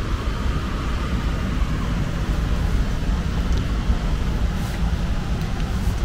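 Air handler blower running steadily, air rushing and whistling through the media filter cabinet. The undersized 20x20 media filter is restricting the airflow, pushing external static pressure over an inch.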